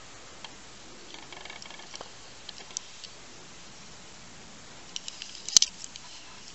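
Handling noise of a small die-cast toy car turned over in the fingers: light scattered clicks and taps, with a sharper click about five and a half seconds in.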